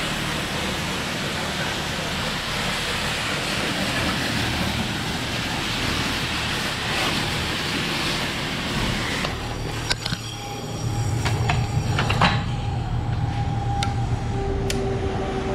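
Self-serve car-wash pressure wand spraying water onto an engine bay: a steady hiss over a low hum. About nine seconds in the spray stops, followed by several sharp clicks and knocks and a faint steady tone near the end.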